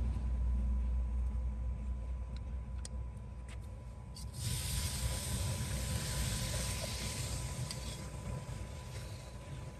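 Low rumble, then about four seconds in a loud hiss of food sizzling in a hot pan starts suddenly and slowly dies down.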